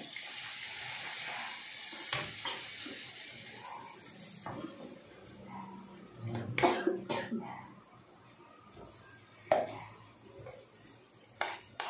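Water poured into a hot frying pan of scrambled egg and vegetables sizzles with a hiss that fades over a few seconds. A wooden spatula then stirs and scrapes the pan, with a few sharp knocks, the loudest about six and a half seconds in.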